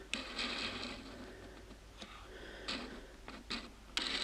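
Light rubs and taps of a cardboard model-kit box being turned and handled, a few short scuffs with a louder one near the end.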